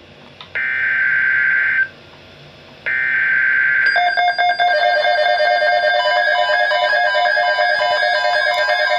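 Emergency Alert System broadcast signals: two harsh buzzing data bursts of about a second each, then from about four seconds in a loud electronic alert tone that keeps stepping between several pitches.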